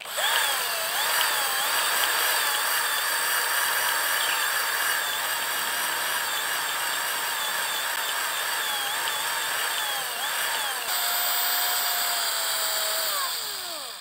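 Small bench drill press running and drilling a row of small holes through PVC pipe, its motor pitch dipping and recovering again and again as the bit bites. Near the end the pitch falls away as the motor winds down.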